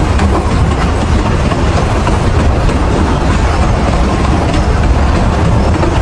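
Loud steady rumble and rushing of a moving fairground ride, with wind buffeting the phone's microphone as it goes round.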